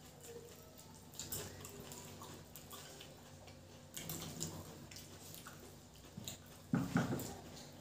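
Soft wet squishing and faint clicks of fingers mixing rice and egg curry on steel plates, with chewing. A louder, fuller sound comes about seven seconds in.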